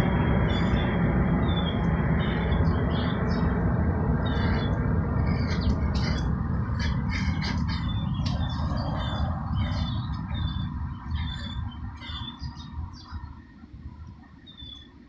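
Small birds chirping repeatedly over the low rumble of a passing vehicle, which fades away over about twelve seconds.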